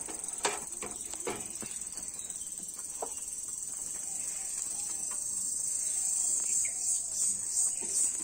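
Steady high-pitched insect chirring that grows louder and turns into an even pulsing, about two pulses a second, near the end, with a few light knocks in the first few seconds.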